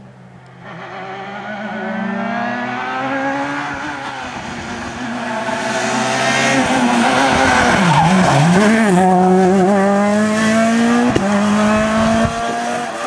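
Peugeot rally car's engine at full throttle, its revs climbing in steps through upshifts as it comes closer. About eight seconds in the revs drop and waver, then climb again as it passes and pulls away, with a single sharp crack near eleven seconds.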